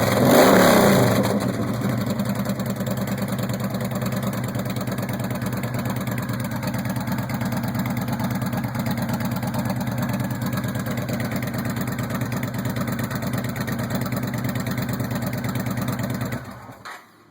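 Yamaha Stryker V-twin running through a Cobra Swept exhaust with the baffles removed: a quick blip of the throttle at the start, then a steady idle that is cut off near the end as the engine is shut down.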